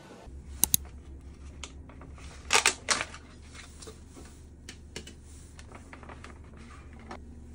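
Clear plastic clamshell food container being opened by hand: two quick snaps as the lid unclips, then a crackle of the thin plastic about two and a half seconds in, followed by small ticks and rustles.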